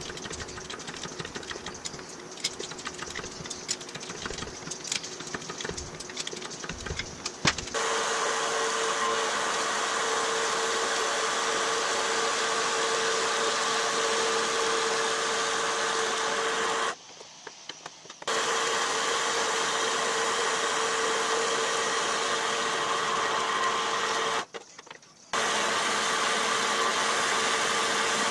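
Irregular metal clanks and clicks from handling steel tubing at a bender. About 8 seconds in, a Grizzly G0622 4x6 metal-cutting bandsaw starts running steadily with a constant hum, cutting a bent steel tube clamped in its vise. The saw sound cuts out briefly twice.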